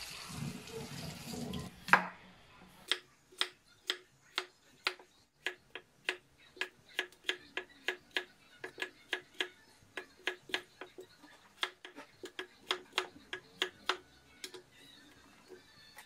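Tap water running briefly, then a knock about two seconds in, followed by a cleaver chopping a peeled potato on a wooden cutting board. The knocks are sharp and steady, about two or three a second, and stop near the end.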